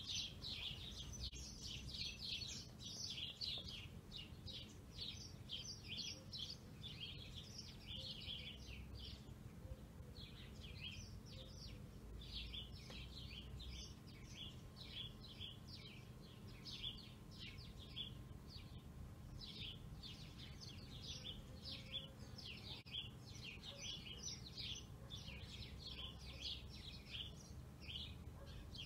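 Small birds chirping in a busy, continuous chatter of quick chirps, faint, over a low steady hum.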